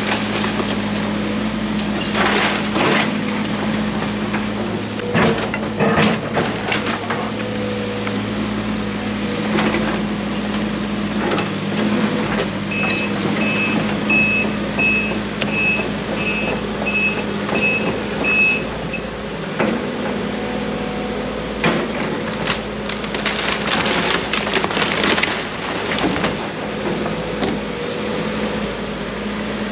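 Case CX160C excavator's diesel engine running steadily while the machine tears apart a wooden house, with repeated cracking and crashing of splintering lumber and falling debris. About halfway through, the excavator's travel alarm beeps about nine times in six seconds as it moves on its tracks.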